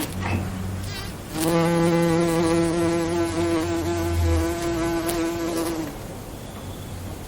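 A bee buzzing, a steady droning buzz that comes and goes. It is loud through the middle and drops away near the start and again near the end.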